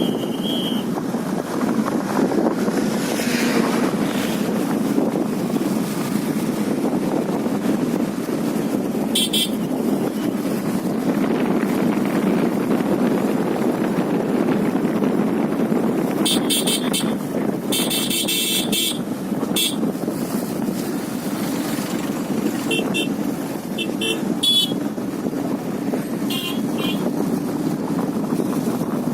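Steady rumble of road traffic, with several short, high horn toots at intervals.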